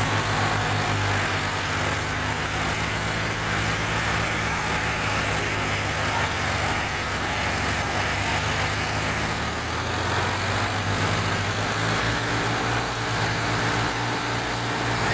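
Diesel tractor engines running steadily under load as an Eicher 5660 drags a loaded trolley slowly through deep mud.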